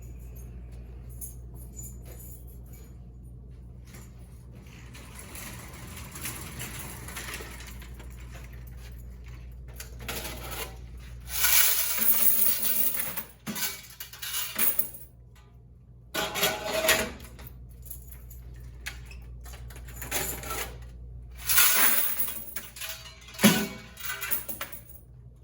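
Quarters being poured out and rattling in several loud bursts a few seconds apart, over a steady low hum.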